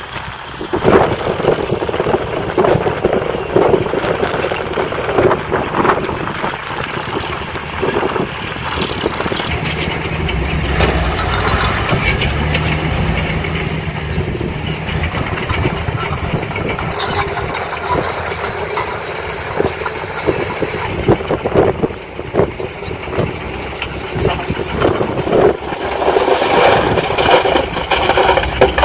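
Diesel engine of heavy earthmoving machinery running, with frequent knocks and clatter throughout, and a steadier low engine note partway through.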